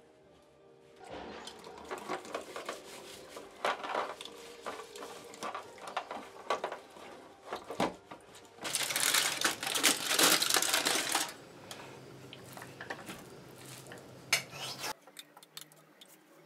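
Kitchen cleaning noises: dishes, pots and a plastic dish rack clattering and knocking, with a louder steady rush of noise lasting a couple of seconds in the middle. Near the end, lighter taps and scrapes of a utensil against a pot.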